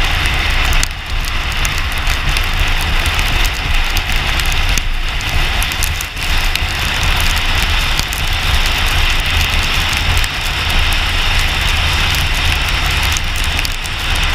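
Wind buffeting and road noise from a moving car, picked up by a camera mounted on the outside of the car: a steady low rumble from the wind on the microphone, under a continuous hiss of tyres on a wet road.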